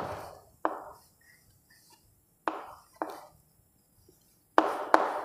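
Chalk striking a chalkboard while writing: about six sharp, separate taps, scattered unevenly with gaps of up to two seconds, each ringing briefly in the room.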